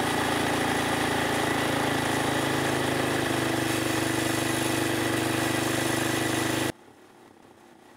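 Polaris Sportsman 500 ATV's single-cylinder four-stroke engine idling steadily and running hot, its coolant temperature gauge pinned past 260°F on waterless coolant. The sound cuts off abruptly near the end.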